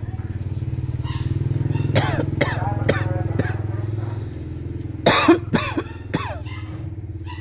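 A low, steady engine hum, like a motor idling, runs throughout. Over it come two runs of four short, sharp calls about half a second apart, each falling in pitch. The first run starts about two seconds in and the louder second run about five seconds in.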